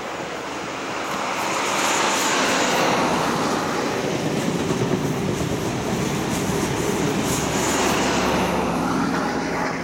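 XPT diesel passenger train passing close by: the power car's engine and the wheels running on the rails, with scattered clicks as the carriages go past. The sound builds about a second in, stays loud while the train passes, and starts to fade at the end.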